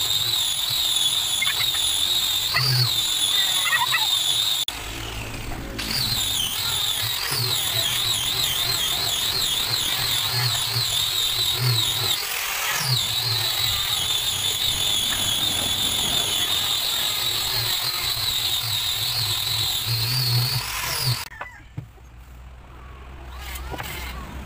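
Handheld electric angle grinder with a sanding disc worked along the edge of a hardwood board: a steady high-pitched whine that wavers in pitch as the disc is pressed into the wood. It dips briefly about five seconds in and stops suddenly near the end.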